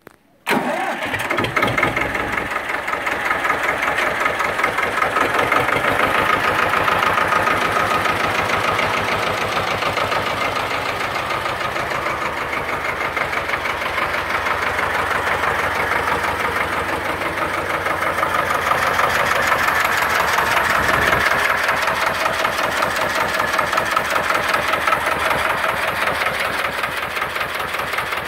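Escort 335 tractor's two-cylinder diesel engine idling steadily, with a fast, even beat of firing strokes.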